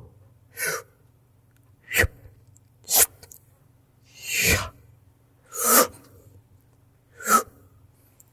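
Six mouth-made whoosh sound effects: short breathy rushes of air blown through the lips, spaced about one to one and a half seconds apart, imitating the swoosh used for video transitions and radio sweepers.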